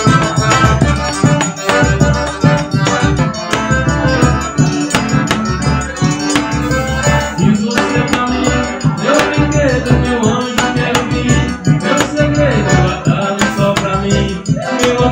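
Live forró pé de serra trio playing: accordion over a zabumba bass drum and a triangle keeping a steady dance rhythm.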